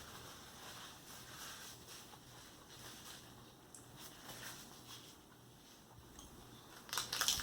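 Faint chewing of a sauced chicken nugget, soft and irregular, with a brief louder crackly rustle near the end.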